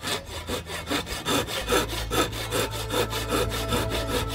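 Freshly sharpened Japanese ryoba pull saw cutting through a wooden board in quick, even strokes, several a second, cutting fast with its new edge.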